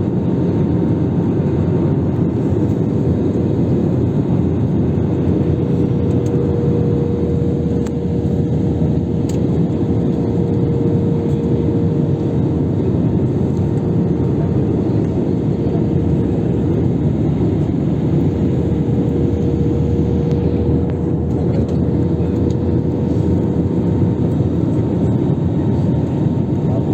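Steady cabin noise of a jet airliner in descent: engine and airflow roar with a constant humming tone running through it.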